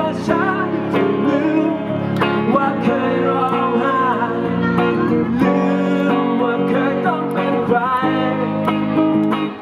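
Live song: a man singing while strumming an electric guitar.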